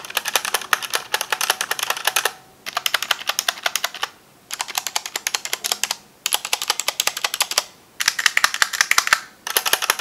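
Stabilized keys of a Logitech G512 mechanical keyboard with GX Brown switches, pressed rapidly in six short bursts of about nine clacks a second with brief pauses between. This is a stabilizer sound test of its Cherry-style stabilizers, which are a little bit loud, the space bar above all.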